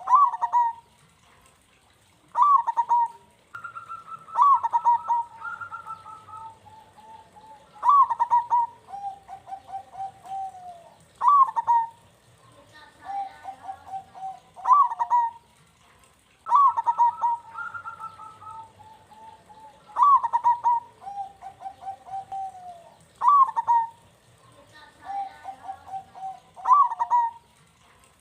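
Zebra doves (perkutut) cooing in their rhythmic song. Each phrase is a sharp high note followed by a lower, rolling trill, and the phrases repeat every three to four seconds. At times two voices overlap.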